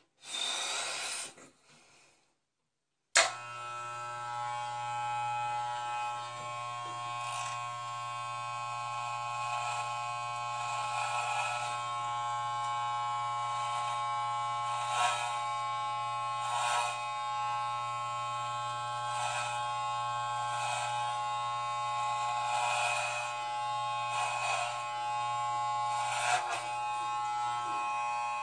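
Electric hair clippers switched on with a click about three seconds in, then buzzing steadily as they shave through long hair. The buzz grows briefly louder every second or two as the blade bites into the hair.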